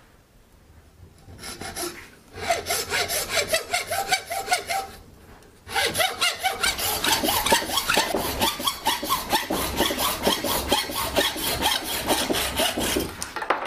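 Hacksaw cutting through a piece of horn held in a vise, halving it. A few short runs of strokes start after about a second and a half and pause briefly near the five-second mark, then steady, fast back-and-forth strokes run on and stop just before the end.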